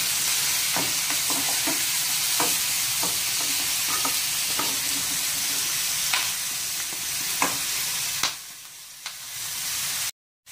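Chunks of lamb searing in hot oil with onion in a pot, a steady sizzle with a few light knocks of a wooden spoon turning the meat. The sizzle drops away briefly about eight seconds in, then cuts off suddenly near the end.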